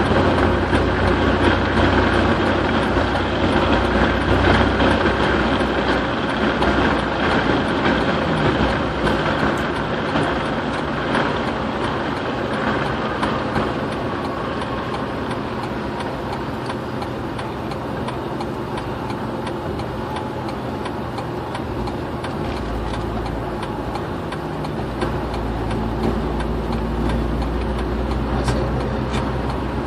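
Steady road and engine noise inside a car's cabin at highway speed. A low rumble grows stronger about two-thirds of the way through.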